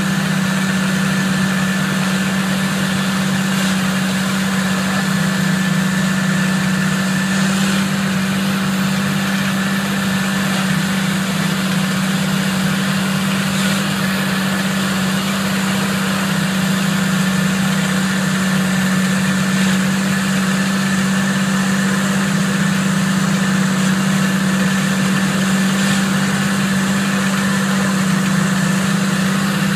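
Tractor engine running steadily under load as it pulls a laser land-leveling scraper through dry soil: a constant low drone with a faint high steady whine above it.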